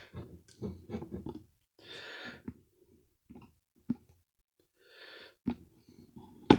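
Close handling noise, with scattered light knocks and rubs as the camera and parts are moved. A person breathes out audibly twice, about two seconds in and again near five seconds.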